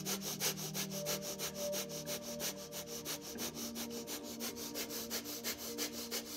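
Fast, forceful rhythmic breathing by one person: short sharp breaths in and out, several a second at an even pace, each exhale pumped by pulling the belly in, as in kapalabhati (breath of fire).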